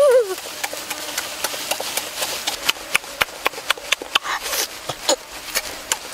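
A person chewing and lip-smacking with the mouth close to the microphone while eating a peeled boiled duck egg: a string of irregular wet clicks and smacks, several a second. It opens with the tail of a hummed, wavering "mmm".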